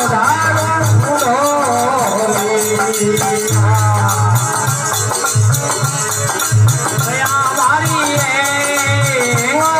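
Devotional bhajan music with a melody that slides up and down in pitch over a steady drum beat and a continuous shaking rattle.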